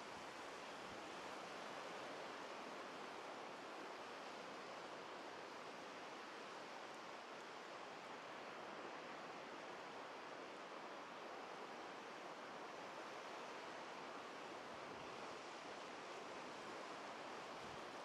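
Low ocean surf washing in over a flat sandy beach: a steady, even wash with no separate wave crashes standing out.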